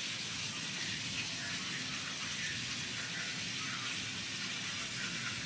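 Steady background hiss with no distinct events.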